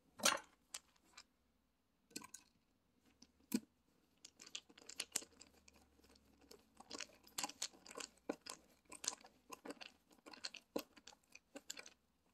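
Hand screwdriver driving a screw through a metal drawer slide into the desk: a few separate clicks in the first four seconds, then a dense run of short crunching clicks and scrapes as the screw is turned in.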